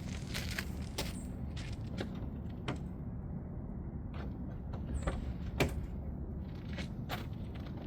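Sharp clicks and knocks, about nine spread across several seconds, the loudest a little past halfway, over a steady low rumble: a car door being opened and handled.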